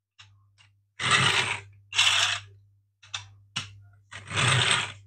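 Hard plastic parts of a 3D-printed rubber-band-powered toy car rasping and clicking in about five irregular bursts as it is worked by hand, over a faint steady hum.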